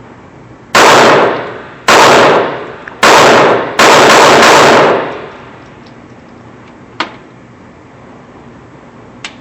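Walther P22 .22 LR pistol fired four times, roughly a second apart, each shot loud enough to max out the recording and ringing for about a second. A faint click follows a couple of seconds later.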